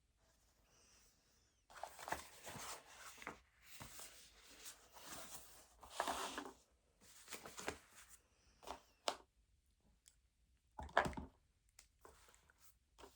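Irregular scratching and rustling of paper at a desk, from writing and handling study papers, with a sharper knock near the end.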